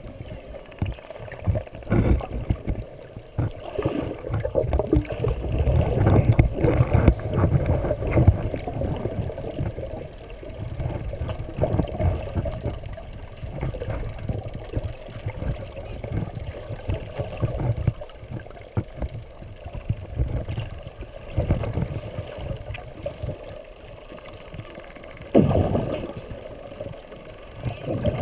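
Underwater sound of a pod of spinner dolphins whistling: many short, high-pitched rising whistles, one after another, over a louder uneven low rumble of water noise, with a stronger surge of the rumble near the end.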